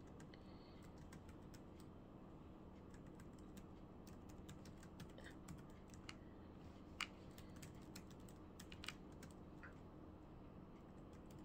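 Faint, irregular clicks of typing, a search being typed in, over a steady low hum of room tone.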